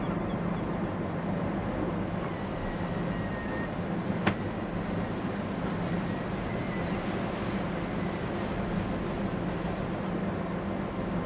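A ship's engines running with a steady low hum, under wind noise on the open deck. A single sharp click sounds about four seconds in.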